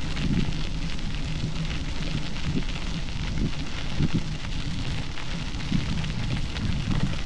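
Bicycle tyres rolling over a gravel trail, a steady crackling crunch, with wind buffeting the camera microphone in uneven low gusts.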